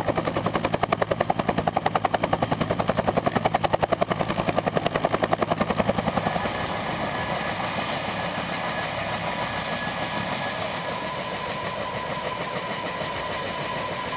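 Bell Huey helicopter's two-bladed main rotor beating in a fast, even blade slap, which about six seconds in gives way to a steadier turbine and rotor whine with a thin high tone.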